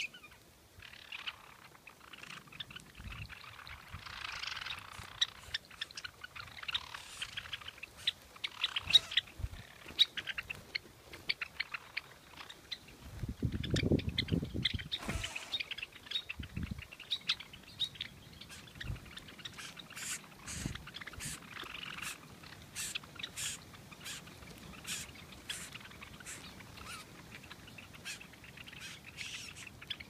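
A feeding flock of Java sparrows with some red-crested cardinals chirping at a seed feeder: many short, sharp chip notes, turning into a quick steady series of ticks in the last third. A low rumble lasting about two seconds near the middle.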